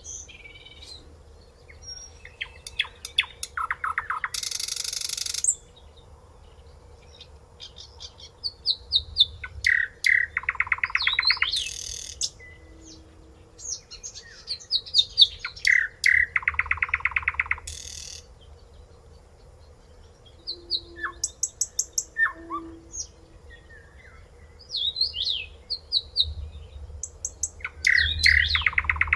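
A songbird singing complex, varied phrases about every six seconds, each mixing sliding whistled notes, rapid trills and a harsh buzzy note at the end.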